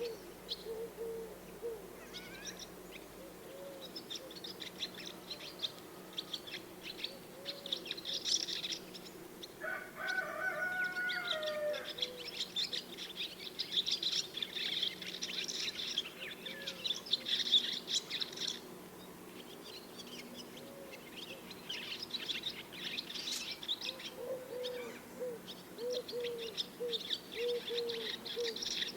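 Swallows twittering in rapid, chattering bouts that come and go, over a low call repeated in short arcs from another bird. About ten seconds in, a different bird gives one longer call lasting a couple of seconds.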